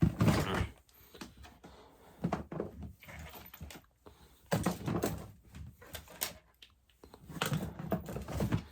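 Fidget toys being handled and moved: irregular rustling and light knocks and clatters in several bursts, the loudest at the start and about halfway through.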